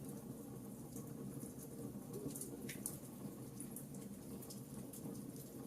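Wood fire burning in a fireplace: a steady low rush of flames with frequent small, irregular crackles and pops.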